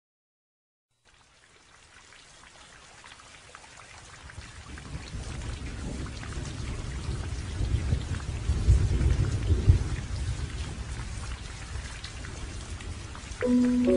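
Steady rain with rolling thunder, fading in about a second in and swelling to a deep rumble around eight to ten seconds in. Music begins near the end.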